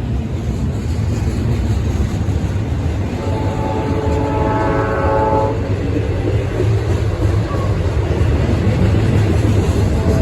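Train rumbling past with a steady low roar that slowly grows louder. A locomotive's multi-note air horn sounds once, for about two seconds, near the middle.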